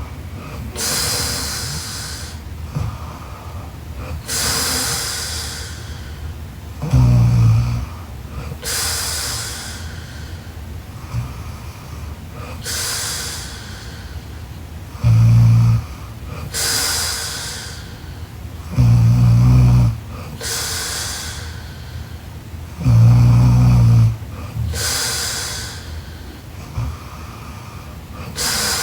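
A girl snoring in her sleep: slow, regular breaths about every four seconds, each with a long breathy rush of air. Four of the breaths carry a loud, low snore of about a second.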